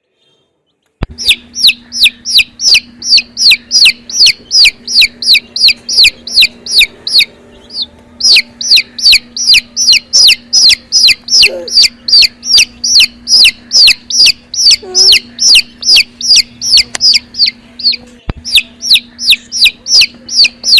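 A chicken chick peeping loudly and steadily, about three high, downward-sliding peeps a second, pausing briefly twice. A faint steady hum runs underneath.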